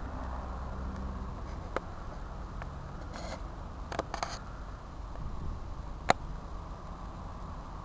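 Camera handling noise: a few sharp clicks and rustles, the loudest about six seconds in, over a low steady rumble.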